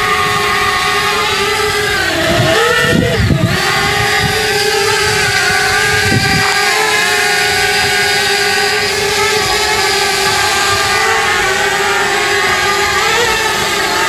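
Parrot Bebop 2 quadcopter's propellers and motors buzzing steadily as it hovers. The pitch dips and recovers briefly about three seconds in and lifts a little near the end.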